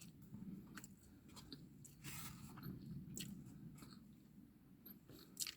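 Faint chewing of food, with small scattered clicks.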